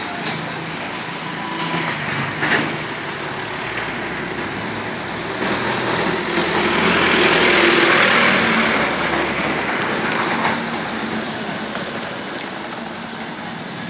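Road traffic with an Eicher light truck's diesel engine running as it drives past, growing louder to a peak about halfway through and then fading. A short sharp knock sounds about two and a half seconds in.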